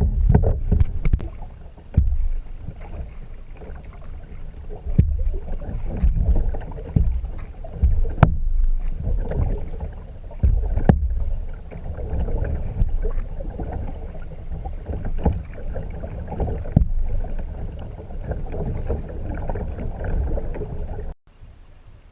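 Kayak out on the water: water splashing and sloshing with a steady low rumble, broken by sharp knocks every few seconds. It cuts off suddenly near the end.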